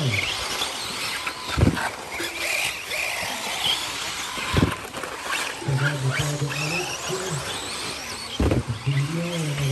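1/10-scale RC buggies racing on a dirt track, their motors whining up and down in pitch as they speed up and slow down. Three dull thumps break in about two, five and eight and a half seconds in.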